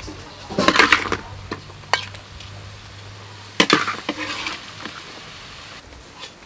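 Metal ladle scraping and clanking against a metal wok while cooked food is scooped out onto a plate. It comes in two bursts, about a second in and again past the middle, with a few sharp clinks between.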